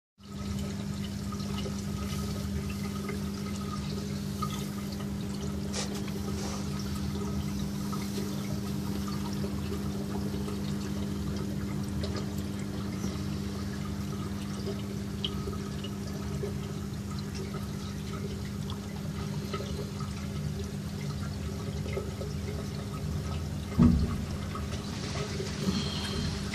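Reef aquarium water circulating: steady pouring and trickling water over a constant low hum. One sharp thump near the end.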